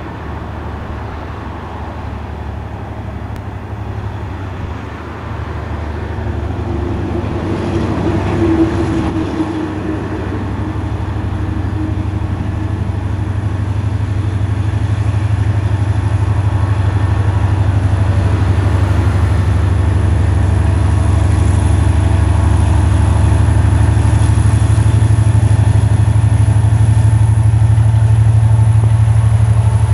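EMD SD39-2M diesel-electric locomotive approaching at the head of a freight train, its low engine rumble growing steadily louder as it nears.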